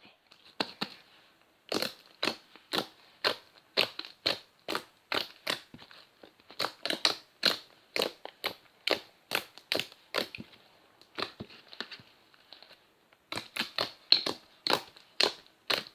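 Gem slime, mixed with glitter gem confetti, being squeezed and kneaded by hand, making a string of short wet pops and clicks, about two a second, with a brief lull a few seconds before the end.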